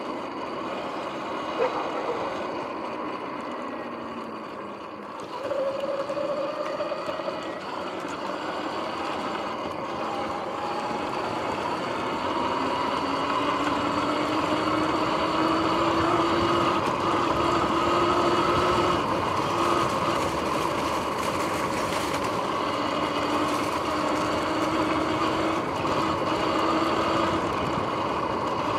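Sur-Ron X electric dirt bike under way: the motor's whine glides up and down in pitch with speed over tyre and wind noise, getting louder about five seconds in as the bike speeds up. The bike's bearings are noisy, in the owner's word, and due to be replaced.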